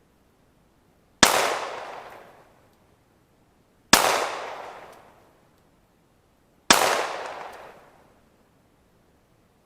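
Three 9mm pistol shots, slow aimed fire about two and a half seconds apart, each crack followed by a long fading echo.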